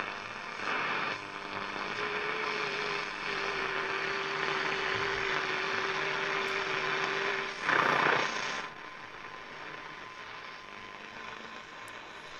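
Graetz Comedia 616 valve radio tuned across the long-wave band, its loudspeaker giving only static hiss with no station: a steady tone for several seconds, a louder burst of noise about eight seconds in, then quieter hiss.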